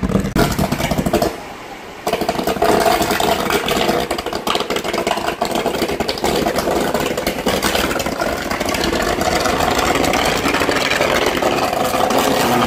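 Underground electrical cable fire burning out of a manhole: after a brief lull, a loud, steady roar starts suddenly about two seconds in as the fire flares up, with crackling through it.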